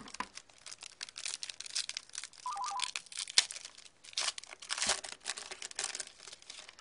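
Wrapper of a trading card pack being torn open and crinkled, with many irregular crackles and one sharp snap about three and a half seconds in. A short pulsed electronic beep sounds briefly about two and a half seconds in.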